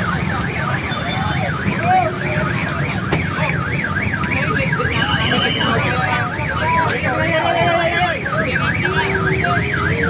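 Car alarm warbling rapidly up and down, three or four sweeps a second, over the chatter of a crowd.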